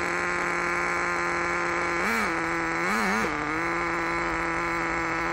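Small nitro engine of a Thunder Tiger Tomahawk BX RC buggy running at a steady idle with a high buzzing note, blipped up in pitch briefly about two seconds in and again twice around three seconds in.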